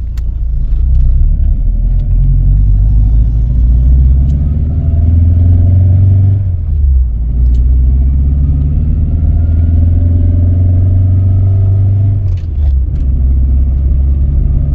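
Engine and road drone inside a Toyota Tercel wagon's cabin while driving, a strong low rumble whose pitch climbs slowly, broken by two brief dips about six and twelve seconds in.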